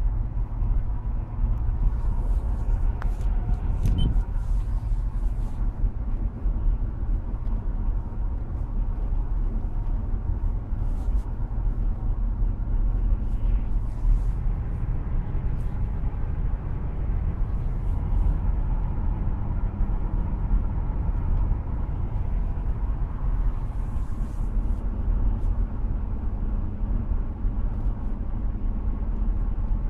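Steady low rumble of cabin noise inside a Lexus LS400 on the move: winter tyres on the road and the 4.0 V8 running, a hushed interior that a sound meter reads at about 59.5 dB.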